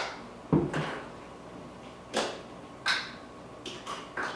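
Several sharp clicks and knocks at irregular intervals as a glass swing-top bottle and a plastic measuring cup are handled over a wooden counter, with one duller thud about half a second in.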